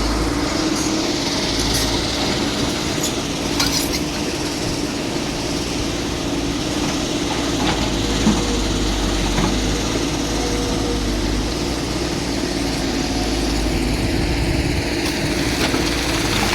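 Heavy machine engine running steadily, with a few short knocks about three to four seconds in and again around eight seconds.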